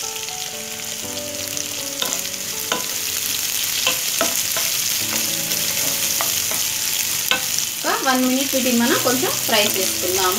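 Sliced onions, dry red chillies and curry leaves sizzling in hot oil in a non-stick kadai while a spatula stirs them, with irregular scrapes and taps of the spatula against the pan.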